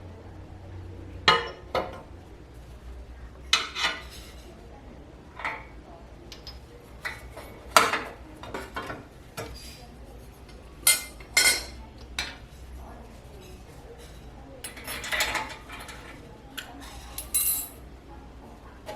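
Metal gas-stove burner parts being taken apart by hand: scattered clinks and knocks of metal on metal, with a busier run of clatter about three-quarters through.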